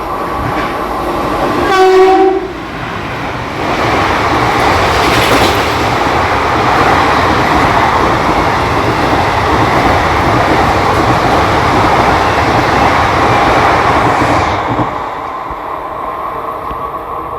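WAP-7 electric locomotive's horn gives one short blast about two seconds in, then the passenger train passes at speed, its wheels clattering over the rail joints, and the noise falls away near the end.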